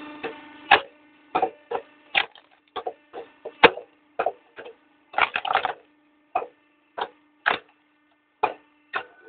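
A 5.5 kW log splitter's motor hums steadily while the log being forced against the wedge gives a series of sharp, irregular cracks and splintering snaps, one to three a second, as the wood fibres give way.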